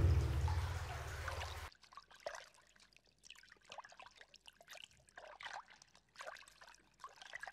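Rain falling with a deep rumble of thunder that fades over the first second or two, then cuts off suddenly; after that, faint, irregular dripping and trickling of water.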